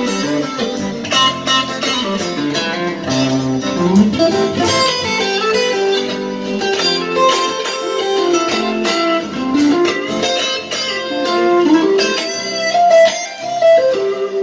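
Melodic, calm guitar playing through a compressed acoustic-guitar sound, many notes ringing together, with some notes sliding up and down in pitch.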